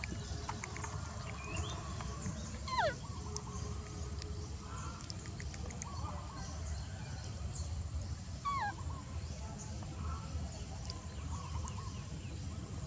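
Two falling squeaky animal calls, the first about two and a half seconds in and the second about six seconds later, over a steady low rumble, with faint short chirps in between.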